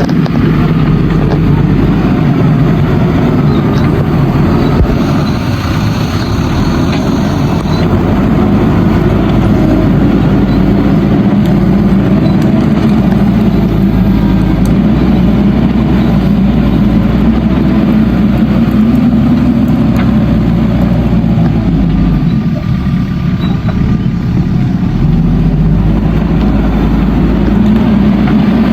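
Diesel engine of a JCB backhoe loader running hard while digging and loading soil. It eases off briefly a little after twenty seconds in and picks up again near the end.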